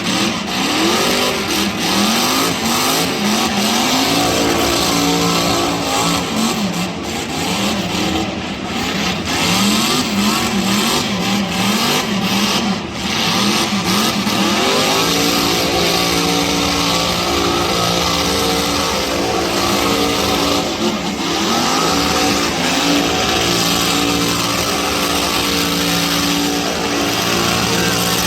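Burnout car's engine revving up and down repeatedly in quick blips, then held at high revs for long stretches from about halfway through, with a continuous hiss of spinning tyres.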